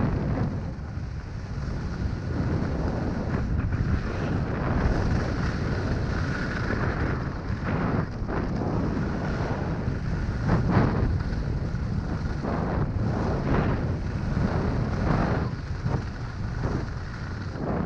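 Wind buffeting a GoPro action camera's microphone during a downhill run on a groomed ski slope, a steady low rumble. Through the second half come repeated short scrapes of edges biting into the packed snow as the rider turns.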